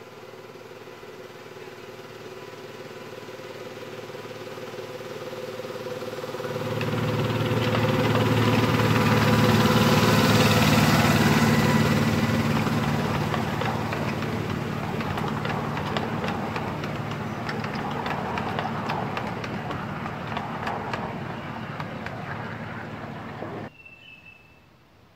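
Engine-driven 7¼-inch gauge miniature railway locomotive passing with its train. It grows louder to a peak about ten seconds in, then fades as it moves away, with a fast clicking rattle in the second half. The sound cuts off suddenly near the end.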